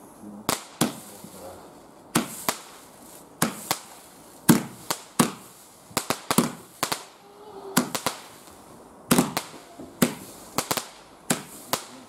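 Multi-shot firework going off in a quick run of about twenty sharp bangs, irregularly spaced and often in close pairs, as it fires stars into the sky.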